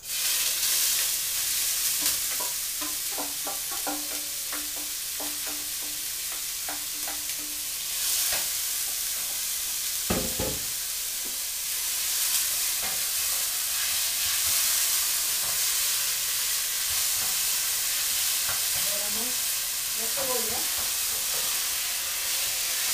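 Chopped onions frying in very hot oil in a stainless steel pan. The sizzling starts suddenly as they go in and then holds steady while they are stirred with a wooden spoon. They are being cooked only until translucent, not browned.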